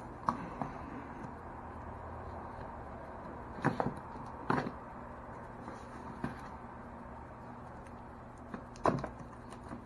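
A shipping package being opened by hand: a few scattered knocks and scrapes over a steady low hum.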